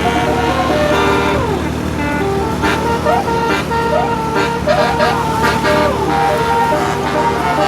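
Bus 'telolet' multi-tone musical horn playing a tune in stepped notes, with a falling slide about a second in and several short rising slides in the middle, over the steady run of the bus engine.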